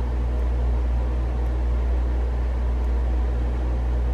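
Steady low hum of room or machine noise, unchanging throughout, with no distinct knocks or clicks.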